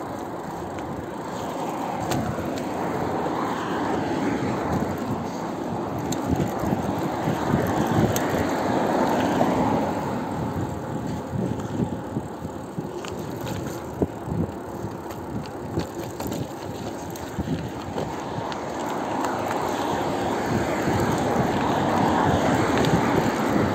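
Bicycle being ridden along a road: continuous rolling noise of the tyres on the surface with rattling and a few sharp clicks, swelling louder about a third of the way in and again near the end.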